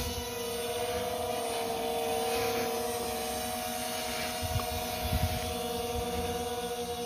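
Electric motor and propeller of a JJRC M02 RC plane whining at a steady pitch as it hangs nose-up in a hover. A few low bumps of wind on the microphone come midway.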